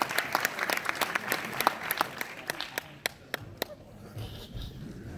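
Audience applauding, the clapping thinning to a few last separate claps about three and a half seconds in and then dying away.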